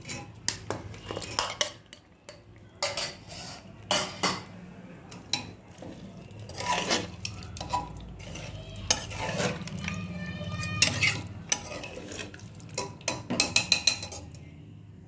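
A metal spoon scraping and clanking against the inside of a pressure cooker as raw chicken pieces are stirred into a wet masala, with irregular knocks throughout and a quick run of clinks near the end.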